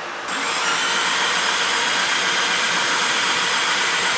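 A loud, steady hiss of rushing air starts just after the beginning and cuts off abruptly near the end.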